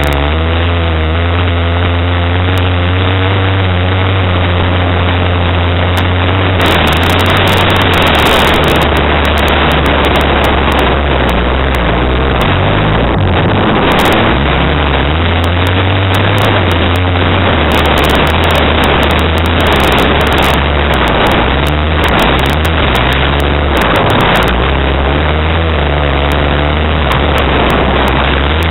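Honda Prelude's four-cylinder engine running hard on a dirt race track, its pitch rising and falling in the first few seconds. From about six seconds in, many short clicks and rattles cut through the engine noise.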